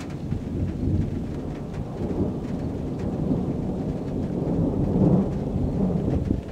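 Rolling thunder rumbling low and long, swelling to its loudest about five seconds in.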